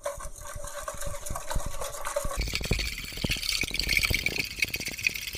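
Wire whisk beating eggs, sugar and warm water in a plastic bowl to dissolve the sugar: a rapid run of clicks and scrapes of the wires against the bowl, getting faster and louder about two and a half seconds in.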